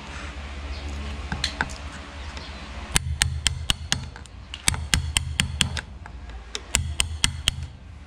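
Wood chisel chopping out the bolt hole in a wooden door jamb through the opening of a fitted deadbolt strike plate: sharp taps coming in three quick bursts of about five or six, starting about three seconds in.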